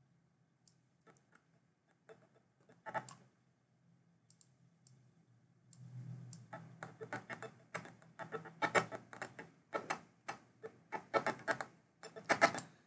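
Computer keyboard typing: a few scattered key clicks, then a fast, steady run of clicks from about halfway in. A faint low hum sits underneath.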